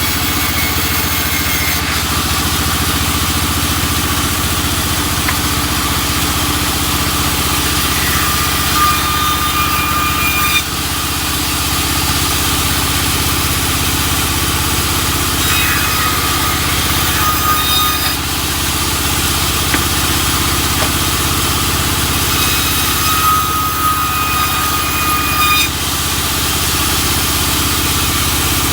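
Sawmill machinery running with a steady engine drone. A higher whine comes and goes three times, several seconds apart.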